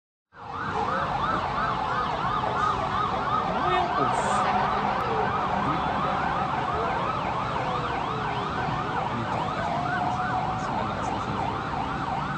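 Several emergency-vehicle sirens sounding at once: fast yelping sirens, about five sweeps a second, overlap with slower rising and falling wails. These are the sirens of emergency vehicles converging on a large fire.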